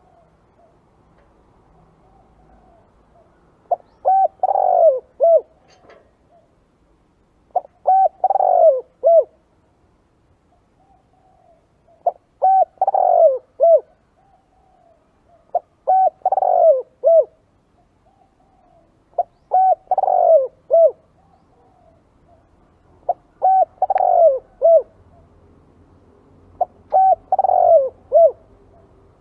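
Spotted dove song: a phrase of several cooing notes repeated about every four seconds, seven times, with fainter soft coos between the phrases. It is the call used to lure spotted doves.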